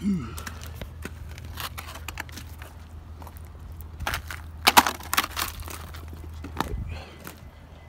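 Crunching and sharp clicks as a black plastic body trim strip is handled over icy, snowy ground. The loudest cluster of clicks comes about halfway through. A steady low hum runs underneath and fades near the end.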